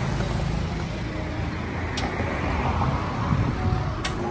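Steady low rumble of road traffic, with two sharp clinks, one about two seconds in and one near the end.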